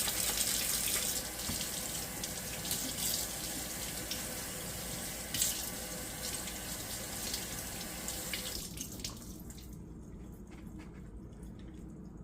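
Kitchen tap running into a sink while a dishwasher filter is washed under the flow. The water stops about eight and a half seconds in.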